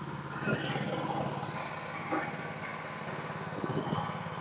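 Small engine running steadily at idle, with a few light knocks and clicks from hand work.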